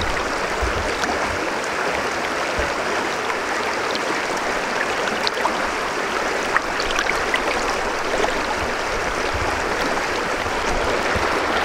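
River water rushing steadily over a stony bed, heard close up.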